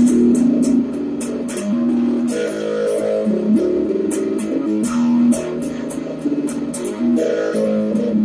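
Electric guitar played with a pick: a busy, repeating boogie-woogie riff of single notes and partial chords.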